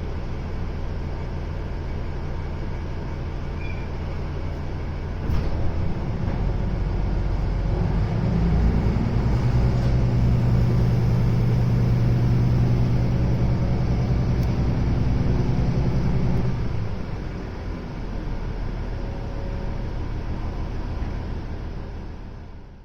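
Diesel railcar running, heard from inside the car: a steady low engine drone, with a knock about five seconds in. The engine then pulls harder and louder for about eight seconds before easing back, and the sound fades out at the end. The train is running at reduced speed for strong wind.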